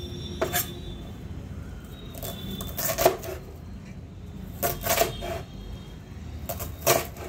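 Cleaver chopping through a bunch of spring onions onto a wooden cutting board: sharp knocks in four short clusters every second or two.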